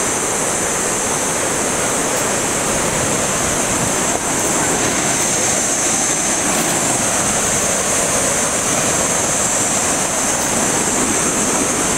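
White-water rapids of the Victoria Nile rushing in a loud, steady, unbroken wash of noise, with a steady high hiss above it.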